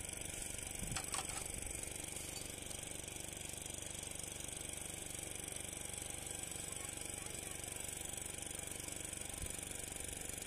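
Metal cups and a metal tray being rinsed and scrubbed by hand, with a few light clinks about a second in and near the end, over a steady mechanical drone.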